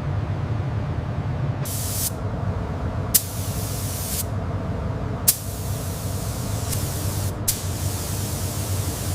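Paint spray gun spraying in repeated bursts of hiss, each starting and stopping sharply as the trigger is pulled and released, the later bursts lasting longer, over a steady low hum.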